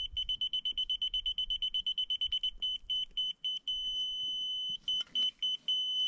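Laser level receiver on a grade rod beeping with one high-pitched tone. The beeps come very fast at first, about nine a second, then slow to a few a second. They give way to a steady tone for about a second, beep again, and settle into a steady tone near the end, which is the receiver's on-grade signal that it sits level with the laser beam.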